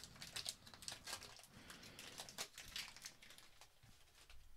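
Faint, irregular crinkling and crackling of a foil Pokémon booster-pack wrapper being handled and opened, thinning out near the end.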